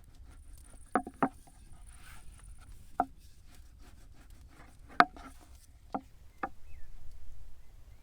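Sharp, irregular knocks of wooden tools on a wooden pasta board while fresh pasta is made by hand: six in all, two close together about a second in. A low rumbling noise rises near the end.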